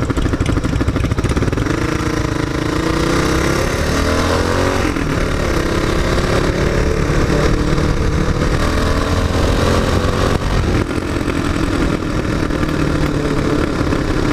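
Motorcycle engine running under way, heard from the rider's seat with wind noise. Its pitch rises as it accelerates a couple of seconds in, drops near five seconds as it shifts or eases off, then climbs again and levels out.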